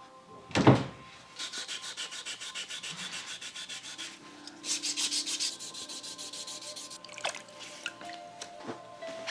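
A wooden box lid thumps shut about a second in, followed by quick, regular back-and-forth rubbing strokes as wet sandpaper is worked along the tip section of a bamboo fishing rod.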